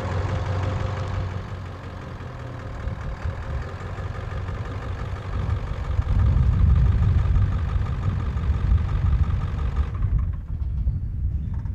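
An engine idling steadily, a low rumble that grows louder about halfway through. A higher whine and hiss above it stop near the end.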